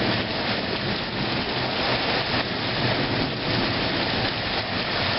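Heavy rain falling steadily in a thunderstorm, a constant even hiss.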